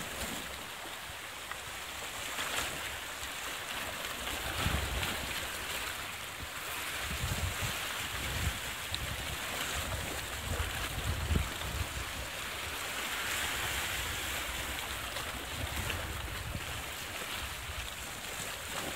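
Sea waves washing against the shore rocks as a steady hiss, with wind gusts buffeting the microphone.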